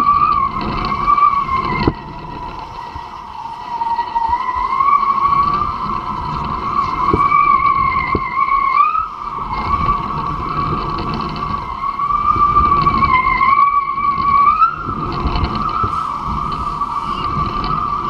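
Hydrofoil whistle, the high singing tone of a kitefoil board's foil cutting through the water, wavering up and down in pitch throughout, over wind buffeting on the microphone.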